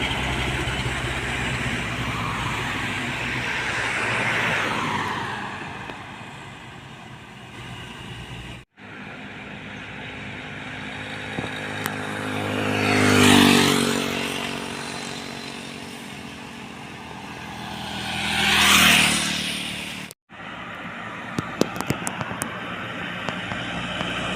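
Highway traffic: heavy vehicles passing close by one after another. Each pass swells to a peak and fades, its engine note dropping in pitch as it goes by. The sound cuts out briefly twice.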